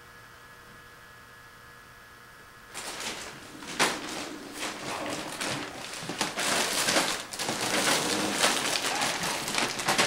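A faint steady electrical hum, then from about three seconds in a long strip of clear plastic packaging crinkling and rustling loudly as it is shaken and dragged over a rug while a kitten pounces on it and tangles in it.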